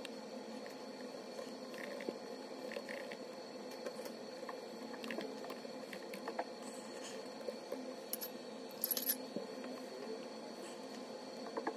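Typing on a MacBook Pro laptop keyboard: faint, scattered key clicks over a steady background hum, with a short louder burst about nine seconds in.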